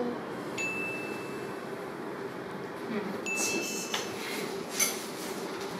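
Two high, clear chime tones from an editing sound effect, each starting sharply: the first about half a second in and ringing on for a few seconds, the second a little after three seconds in and shorter. A faint steady hum and a few light clinks sound underneath.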